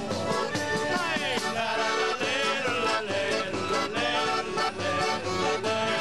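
Sicilian folk music played live by a street trio: an accordion carries the tune over a strummed acoustic guitar and a tamburello frame drum with jingles, and a man sings along.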